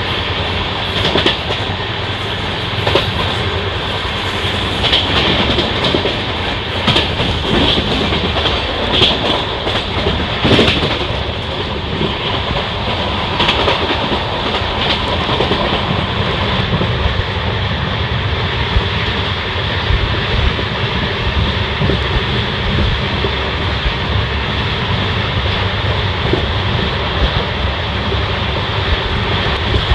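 Passenger express train running along the track, its wheels clicking over rail joints. There are scattered sharp clicks through the first half, then a steadier running rumble.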